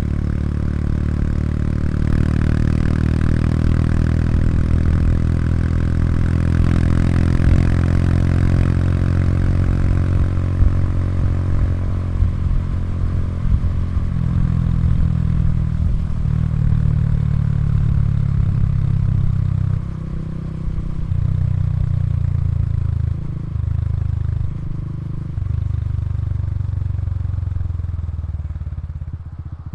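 Honda Super Cub 110 Pro's air-cooled single-cylinder engine running through its exhaust, revs held higher in the first half and easing slightly. In the second half the throttle closes briefly several times, and the sound falls away just before the end.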